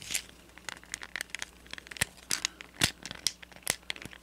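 Plastic parts of a Transformers Studio Series 86 Voyager Hot Rod figure clicking and clacking as fingers press its tabs into their slots to lock the car mode together. The clicks are short and irregular, and the two loudest come about two seconds in and just under three seconds in.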